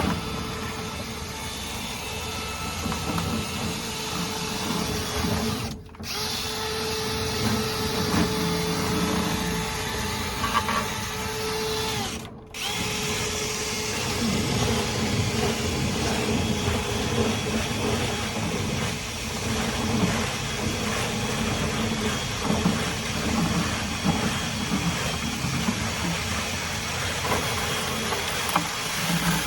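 Power drill running steadily, spinning a rotary dryer vent cleaning brush through the duct. The sound breaks off briefly twice, about 6 and 12 seconds in, at cuts between clips.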